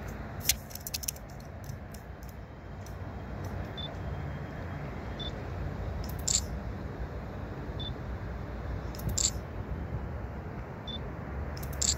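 Low steady rumble of CN yard diesel locomotives, an EMD GP9RM with its slug and a GP38-2W, creeping slowly through the yard. Sharp clicks break in, a quick cluster near the start, then single clicks a few seconds apart, along with a few faint short high beeps.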